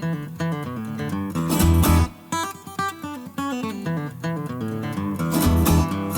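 Background music led by a plucked acoustic guitar, quick single notes over a low bass line.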